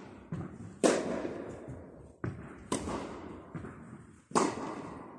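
Tennis rally: a tennis ball struck by rackets with loud pops, about three strikes spaced roughly two seconds apart, with softer ball bounces on the court between them. Each one rings on in the echo of a large indoor tennis hall.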